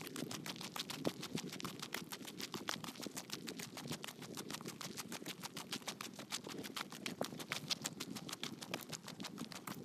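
Quick, even footsteps crunching on a gritty, gravel-strewn asphalt path, about five to six sharp steps a second, over a low hiss of wind.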